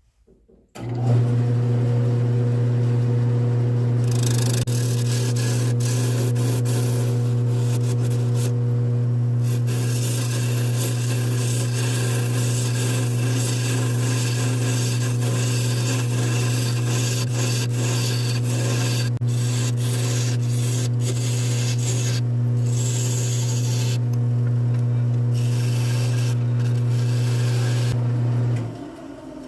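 Wood lathe motor starting about a second in and running with a steady hum, then shutting off near the end. For most of that time a turning tool scrapes and hisses as it cuts into the spinning poplar bowl blank, starting and stopping in passes.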